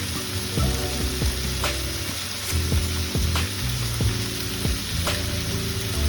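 Pork belly and tofu stir-fry sizzling in a frying pan as it is stirred, with a utensil knocking against the pan a few times.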